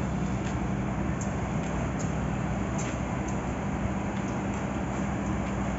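Railway station platform ambience: a steady low drone from trains standing in the station, with faint light ticks above it.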